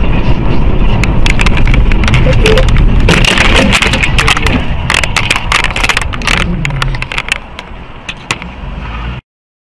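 Vehicle in motion heard through a dashcam microphone: a loud, steady low road and engine rumble with a dense run of sharp knocks and clatter in the middle. The rumble dies down and then cuts off suddenly near the end.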